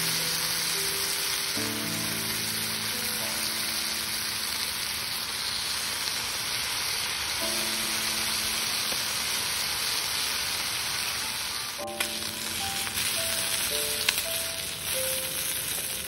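Sausages sizzling in a small cast-iron skillet over a camping gas stove, a steady hiss with a couple of sharp clicks near the end.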